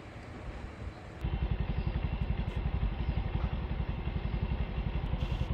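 An engine idling, a fast, even low pulsing that comes in suddenly about a second in, over a quieter steady outdoor hum.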